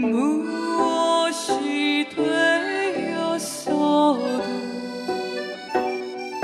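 Gayageum playing an instrumental passage: plucked string notes about once a second, several of them bending up or down in pitch as the string is pressed.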